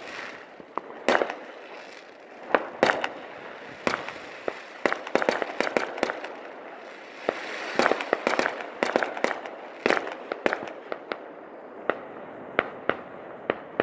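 Consumer aerial fireworks going off: irregular sharp bangs and pops, with quick runs of crackling about five seconds in and again around eight to ten seconds in.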